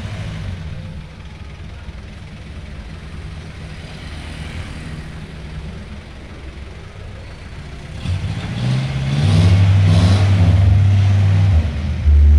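Old Jeep-style 4x4's engine running with a low, steady rumble as the vehicle is backed up. About eight seconds in it is revved: it gets much louder, rises in pitch and then holds a steady higher note.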